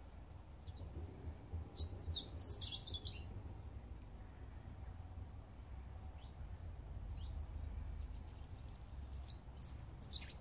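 Small birds chirping, with a quick run of chirps about two seconds in, a couple of single chirps later and another short run near the end, over a low steady rumble.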